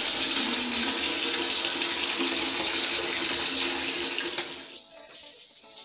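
Water running from a tap into a bucket, a steady rushing splash that stops about four and a half seconds in.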